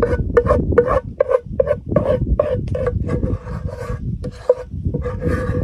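A spoon scraping the inside of a round container in quick repeated strokes, about three a second, as the contents are scooped out. The container rings faintly with each stroke.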